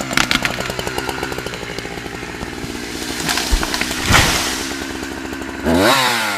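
Chainsaw engine running steadily under load, then revving up and dropping back near the end.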